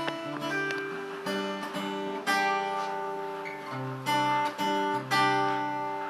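Acoustic guitar playing slow chords and picked notes, each note ringing on.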